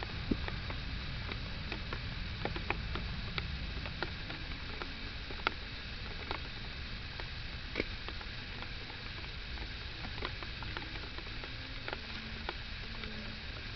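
Rain falling, heard as scattered, irregular drop ticks, some sharper than others, over a steady low rumble.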